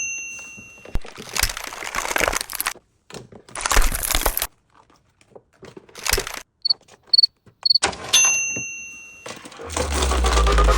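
Restocking handling noise, with rustling and clattering of items in bursts, mixed with added cartoon sound effects: a ringing chime at the start, three short high beeps, and another chime. A bass-heavy electronic music drop comes in near the end.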